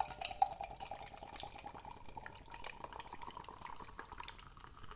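Beer poured from a can into a stemmed glass: a steady stream of liquid whose pitch rises as the glass fills.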